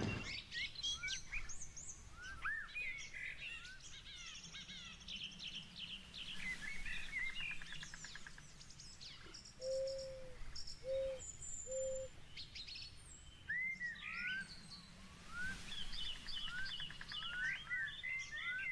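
Birds chirping, with many quick, high rising and falling calls throughout. About ten seconds in come three short, lower notes about a second apart.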